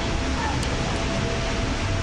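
Steady indoor ambience of a shopping mall: an even hiss with a faint steady hum running through it.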